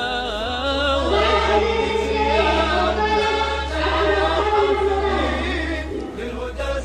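A choir of voices singing an Arabic nasheed in a drawn-out melodic line, over a low steady drone.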